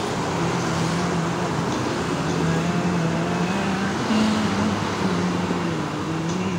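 A motor running steadily, its hum shifting up and down a little in pitch, over a constant background rumble like road traffic.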